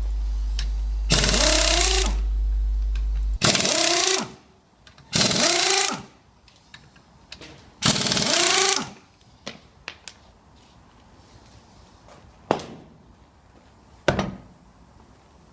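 Impact wrench run in four bursts of about a second each, its pitch dipping and rising within each burst, undoing the wheel bolts. Near the end, two sharp thumps as the stuck wheel is kicked loose from the hub.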